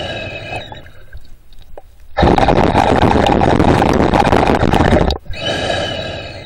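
Underwater breathing of the swimmer: a hissing breath that fades out in the first second, a short pause, then a long, louder breath with a rush of air and bubbles from about two to five seconds in, and another hissing breath after it.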